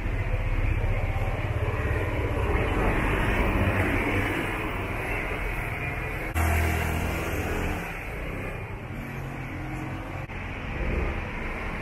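Street traffic: vehicle engines running past, with a steady low hum under road noise. The low engine sound jumps suddenly louder about six seconds in, then eases off.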